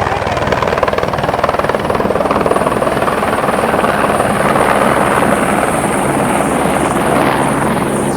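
Helicopter running close up: a loud, steady, rapid rotor beat with a thin, steady high whine above it.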